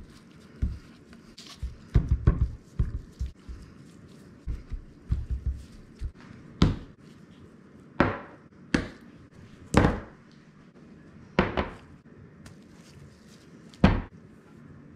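Glass spice jars being handled and set down on a kitchen countertop: a quick run of low thuds early on, then about six single sharp knocks spaced a second or so apart.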